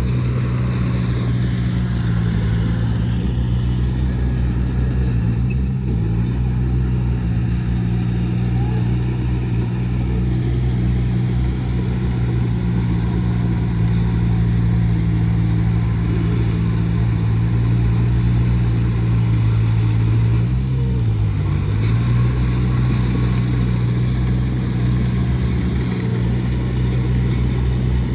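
Heavy diesel engine of earthmoving machinery running steadily, its pitch dipping briefly and coming back up about 21 seconds in.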